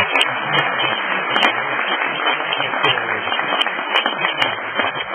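Audience applauding: a dense, steady crowd of clapping.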